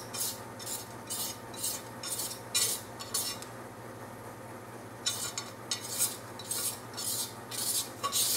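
Fingers rubbing and scraping across sandblasted glass, stripping off dried fabric-paint resist: quick scratchy strokes about two a second, with a pause of over a second near the middle.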